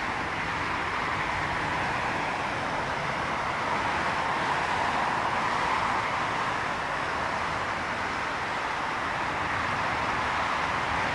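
Steady jet engine noise from airliners at an airport runway, an even rushing sound without a distinct whine, swelling slightly about halfway through.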